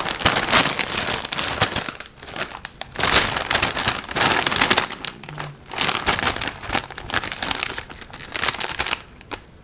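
Foil-lined chip bag crinkling loudly in several bursts as it is handled and tugged at along its freshly heat-sealed top.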